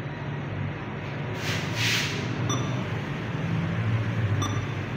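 Bank ATM giving two short beeps about two seconds apart as its buttons are pressed, over a steady low hum. A brief hiss comes a little before the first beep.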